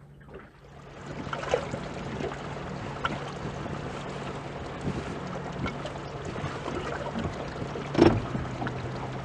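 A small fishing boat's engine runs with a steady low hum under wind and sea noise. Scattered light clicks are heard, and there is one sharp knock about eight seconds in.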